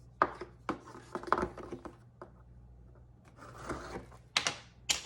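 A package being opened by hand: a few short sharp scrapes and cuts, a pause, then several louder rasping rips of packaging near the end.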